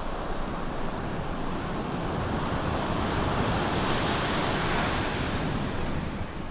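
Ocean surf breaking and washing ashore: a wave's rush builds to a peak about four seconds in, then recedes near the end.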